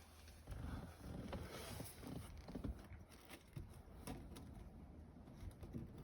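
Low wind rumble on the microphone, with faint scattered clicks and rustles of handling.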